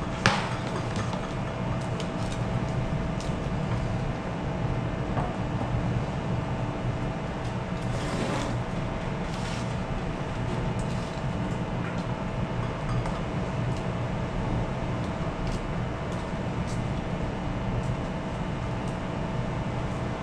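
Steady drone of a ship's machinery, a low hum with a constant tone above it. A sharp click comes just after the start, and a few soft clicks and rustles follow as rope is handled while a monkey fist knot is tied.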